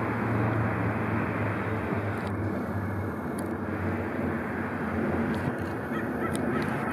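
Steady street ambience of road traffic, with a low engine hum that eases off after about three and a half seconds.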